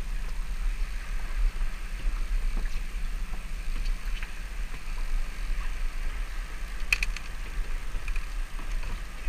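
Wind buffeting the microphone on open water, a steady low rumble, with a few faint ticks and a short clatter of clicks about seven seconds in.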